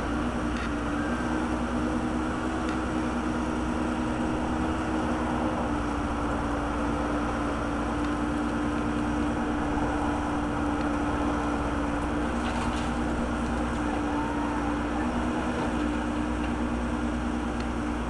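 Case backhoe loader's diesel engine running steadily at a constant pitch as the boom digs and swings.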